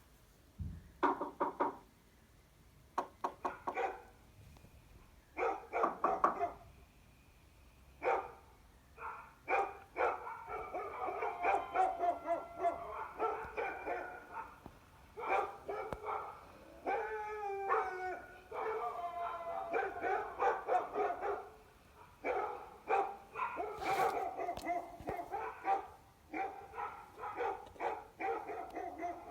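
A dog barking in short runs of barks and yips, separated by brief pauses, with near-continuous barking in the middle and again towards the end.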